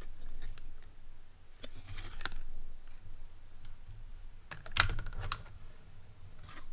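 Pliers and their packaging being handled during unpacking: scattered light clicks and rustles, with a louder cluster of clacks about five seconds in.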